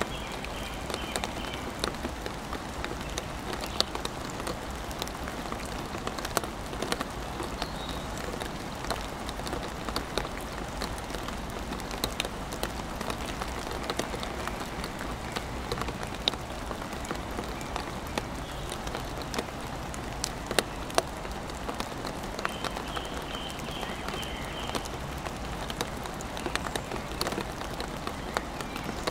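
Rain falling steadily on a wooden play tunnel and the wood chips around it: an even hiss with many sharp, separate drop clicks close by.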